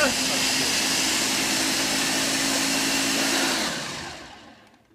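Ninja countertop blender running at full power, blending a protein shake of milk, oats and peanut butter, then switched off about three and a half seconds in and winding down over about a second.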